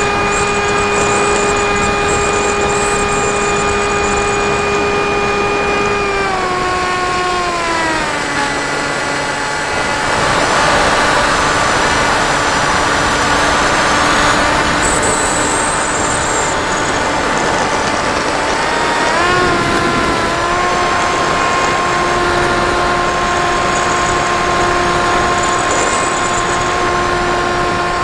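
Model plane's motor and propeller whining in flight, heard from the onboard camera. The pitch slides down about six seconds in as the throttle comes back, a rush of wind over the airframe stands out in the middle, and the whine climbs again about twenty seconds in and holds steady.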